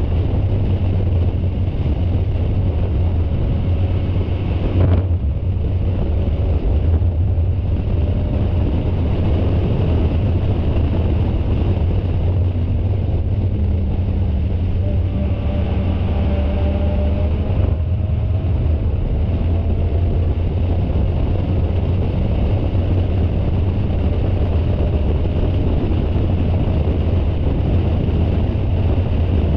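Spec Miata race car's four-cylinder engine and road noise heard from the onboard camera: a steady drone that holds one pitch, with no shifts or revs. A brief knock comes about five seconds in.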